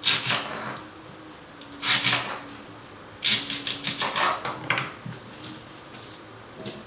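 Kitchen knife chopping through green onion stalks onto a cutting board, in short groups of quick cuts, with a longer run of rapid chops from about three to five seconds in.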